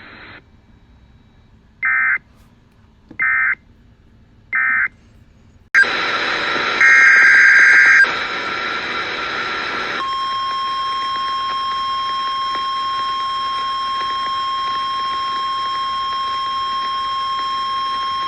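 NOAA Weather Radio emergency alert signalling heard through a weather radio. First come three short digital data bursts, the end-of-message code of the warning just read. Then radio hiss with another data burst, the header of the next alert, and from about halfway through a single steady alert tone of about 1050 Hz held for about eight seconds.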